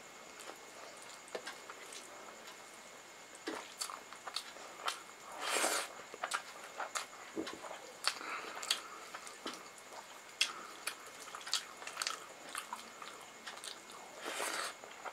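Close-up eating sounds of rice and pakoda curry being eaten by hand: fingers mixing rice on the plate, with frequent small clicks and smacks of chewing. Two longer, louder swells of noise come about six seconds in and near the end, the second as a handful goes into the mouth.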